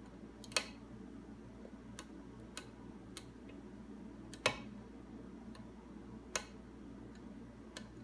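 Short, sharp metal clicks from a hook pick and tension wrench working the pins of a mortise lock cylinder during single-pin picking: about eight clicks at irregular intervals, the loudest about halfway through.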